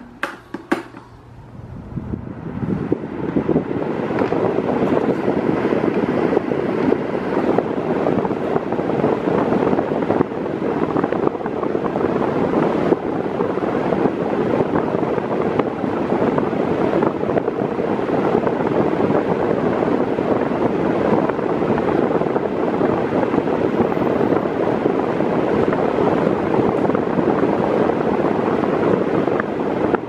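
Mondial Turbo Silêncio 40 cm 140 W fan running on its lowest speed: a steady rush of moving air that builds over the first few seconds and then holds level. A couple of light clicks come right at the start. On minimum this fan moves much more air than its rival and so is noisier.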